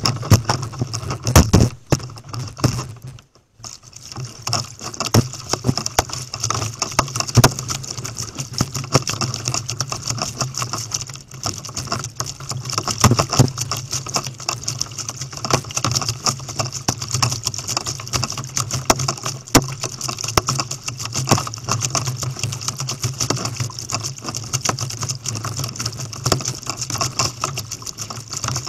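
Water splashing and slapping against an inflatable kayak's hull while it is paddled, a dense, continuous patter of small knocks and splashes, with a brief lull about three seconds in.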